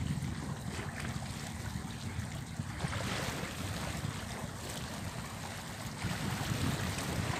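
Wind buffeting the microphone, with small sea waves washing against the rocks; the wash grows louder about three seconds in.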